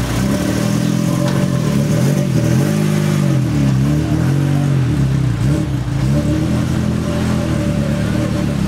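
A motor vehicle engine running steadily, its revs rising and falling several times in the middle.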